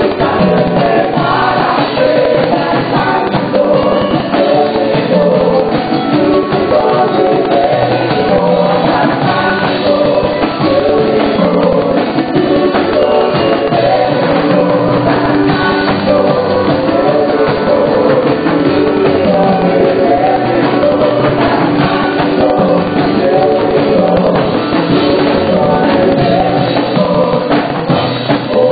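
Live gospel worship song: several singers on microphones singing in Spanish, backed by keyboard and hand percussion, heard through the church sound system.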